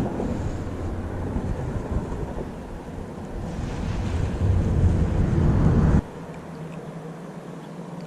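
Wind buffeting the microphone, a low rumble that grows louder about four seconds in and cuts off abruptly about six seconds in, leaving a quieter outdoor background.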